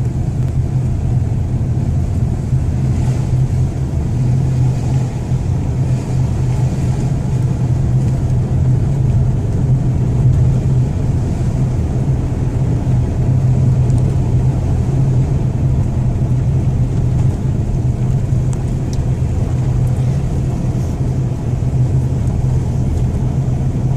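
Car driving steadily along a forest road, with a continuous low engine and tyre rumble.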